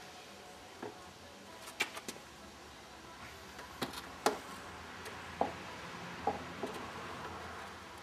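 Pine folding Adirondack chair knocking and clacking as it is folded down and opened up again: a run of sharp wooden knocks, the loudest about four seconds in.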